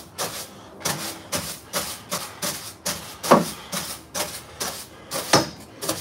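Broom sweeping dirt across a school bus floor: short scraping strokes at about two a second.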